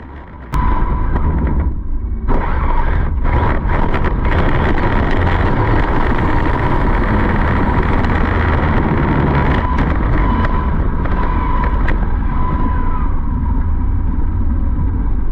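Electric RC car running at speed: a steady high whine over a loud, continuous low rumble, starting suddenly about half a second in.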